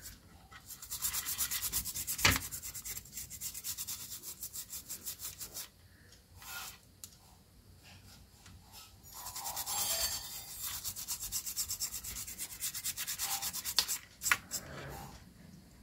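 Toothbrush bristles scrubbing the solder side of a circuit board in rapid back-and-forth strokes, cleaning freshly soldered joints with isopropyl alcohol. The scrubbing comes in two bouts with a pause of a few seconds between, and a sharp tick about two seconds in.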